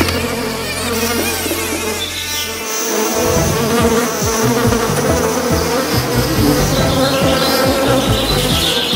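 Buzzing of cartoon bees' wings in flight: a steady low drone for the first few seconds, then a busier, pulsing buzz from about three seconds in as several bees fly together.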